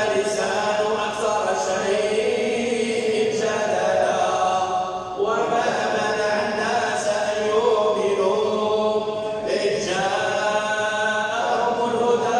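Quran recitation chanted in long, drawn-out melodic phrases, with a new phrase beginning about five seconds in and again near the end.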